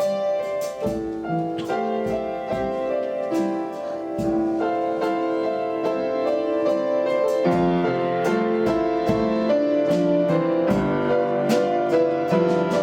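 Piano playing held chords and melody notes as worship music, with a new note or chord struck every second or so.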